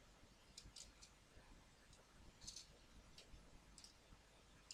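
Near silence with a few faint, short clicks, from a blank CD being put into a desktop PC's DVD writer.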